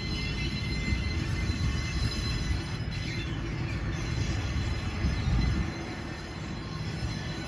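Narrow-gauge sugarcane train: a diesel locomotive hauling loaded cane bins, with a steady low rumble and thin, high wheel squeal from the wagons.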